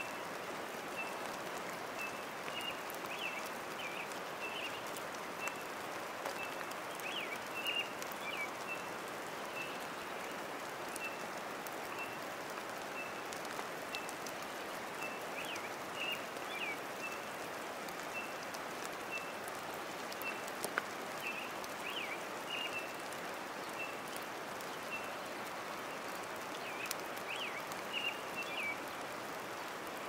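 Steady rain-like hiss throughout, with a bird repeating short high call notes and breaking a few times into quicker, bending twitters.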